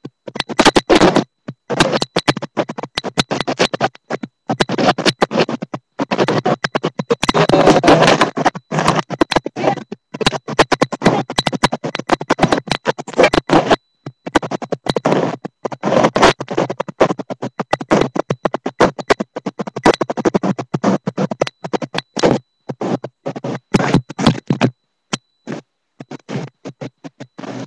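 Loud, choppy crackling and rubbing noise on the handheld camera's microphone, cutting in and out many times a second with brief gaps of silence.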